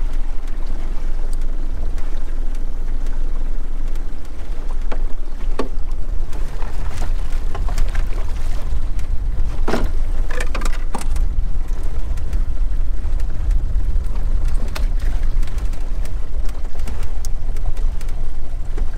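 Small Mercury outboard motor running at trolling speed, pushing an aluminium dinghy along with a steady low rumble. A few sharp knocks come in the middle, the loudest about ten seconds in.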